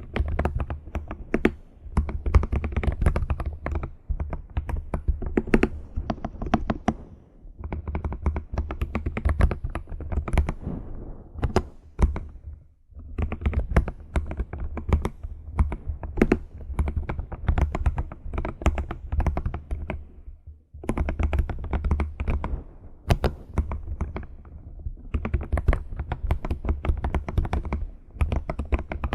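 Computer keyboard being typed on in quick runs of key clicks, broken by brief pauses every few seconds.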